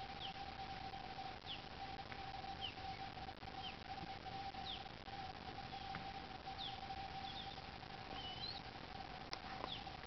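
Tingsha (Tibetan hand cymbals) ringing on as one steady, slightly pulsing tone after being struck, cut off with a click at the very end. Birds chirp over it, short falling chirps about once a second.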